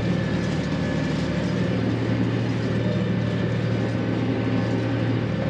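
Tractor engine running steadily at working revs, driving a twin-arm hay rake off the PTO at 540.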